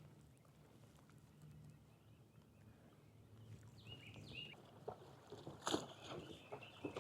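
Quiet kayak sounds: a faint low hum, then a few short high chirps about four seconds in and several sharp knocks and clicks of fishing gear being handled on the kayak near the end.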